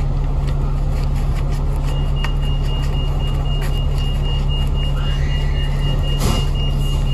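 City bus engine running steadily inside the cabin, with a constant low hum. From about two seconds in, a steady high-pitched electronic beep tone sounds continuously, and a single clunk comes near the end.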